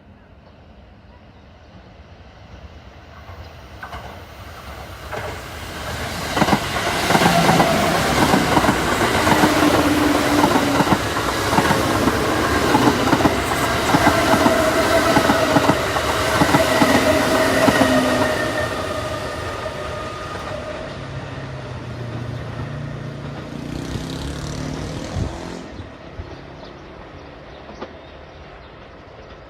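Kintetsu electric train passing close by. It builds up, then goes by loudly with wheels clattering over rail joints and a steady whine, and fades away over the last several seconds.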